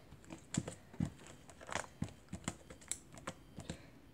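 Purple butter slime being poked, pressed and pulled apart with the fingers, making a string of irregular soft clicks and small sticky pops. The slime is soft and sticky, which she puts down to the lamp melting it.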